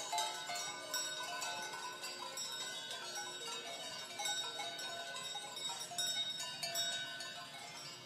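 Several cowbells on grazing cows clanging irregularly, bells of different pitches ringing over one another.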